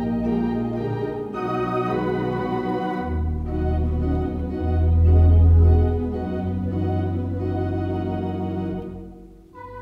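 Rodgers MS351 digital organ playing sustained chords over deep pedal bass notes, which swell loudest around the middle. The chord dies away near the end, and a new, higher note enters.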